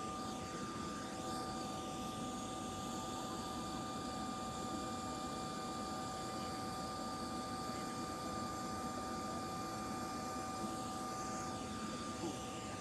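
Jet aircraft engines running steadily: a whine of several fixed high tones over a low rumble, level and unchanging throughout.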